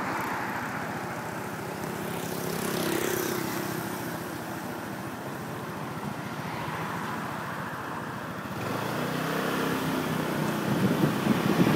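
Steady engine and road noise of a vehicle on the move. It swells briefly about three seconds in and grows louder in the last few seconds as the engine picks up.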